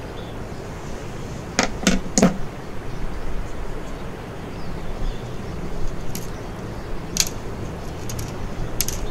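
Small sharp clicks and clinks from handling pliers, a brass barrel swivel and monofilament fishing line while a knot is finished and pulled tight. A quick run of three clicks comes about two seconds in, and scattered lighter clicks come in the last few seconds, over a steady low background rumble.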